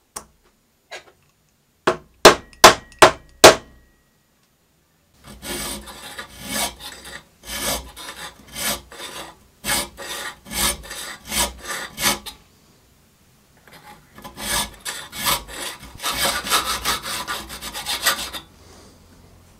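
Five sharp knocks in quick succession, then a hand file rasping back and forth over a steel eccentric shaft clamped in a vise, filing flat spots into it. The strokes come in two runs, each stroke under a second apart, with a short pause between the runs.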